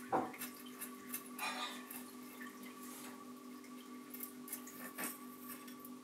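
Faint water drips and small splashes with light clicks as planting tweezers work in an aquarium's water, over a steady low hum. A louder knock comes right at the start.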